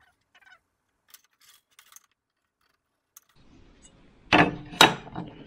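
A few faint small clicks, then a metal square clacking twice against a board as it is picked up and laid down for marking.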